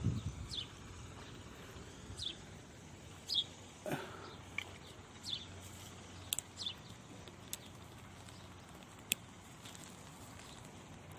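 A small bird calling with short falling chirps, repeated about once a second, that stop about halfway through. Later come a few sharp clicks, over a faint outdoor hiss.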